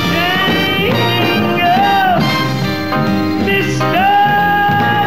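Male singer performing a ballad live with band accompaniment. He holds three long notes, the middle one rising and falling, and the last held steady for over a second near the end.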